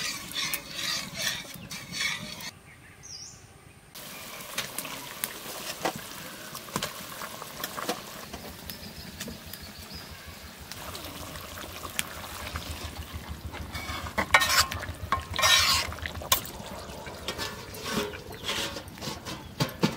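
Food frying in a pan while it is stirred: a steady sizzle with the scrape and clink of a stirring utensil against the pan, the scraping louder around the middle of the second half.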